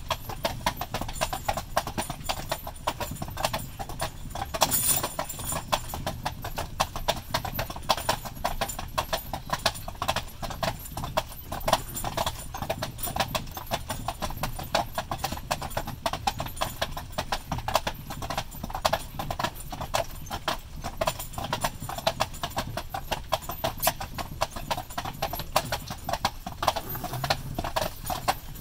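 A pair of carriage horses walking on a paved road, their hooves making a steady, overlapping clip-clop. Under it runs a low, steady rumble.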